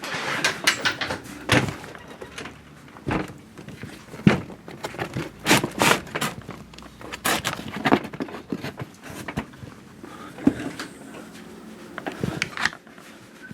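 Irregular knocks, taps and rustles of objects being handled, a dozen or so sharp clicks spread unevenly among them.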